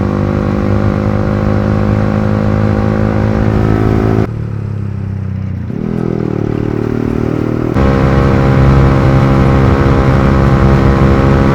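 Yamaha R15 V3's single-cylinder engine running through a loud aftermarket exhaust while the bike is ridden. It drops away abruptly about four seconds in, settles at a lower pitch, then comes back louder just before eight seconds.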